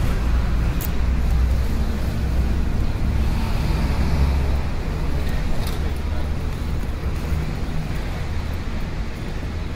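Steady city street traffic noise, a low rumble of passing vehicles.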